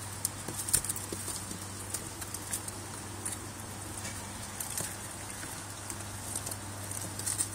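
Baby rabbits chewing and tugging at kale leaves in straw bedding: soft, irregular crunches, clicks and rustles over a steady low hum.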